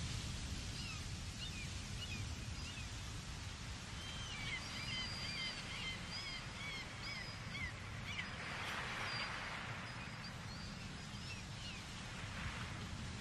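Small birds chirping in short, quick repeated phrases, thickest in the middle, over a steady rushing background that swells briefly twice.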